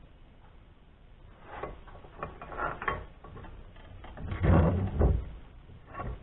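Irregular clattering and knocking of metal parts and tools being handled, loudest a little past halfway; no steady grinder is running.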